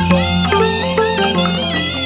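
Instrumental passage of Burmese traditional-style devotional music: a melody with sliding notes over a steady low bass note, with struck notes that ring and fade.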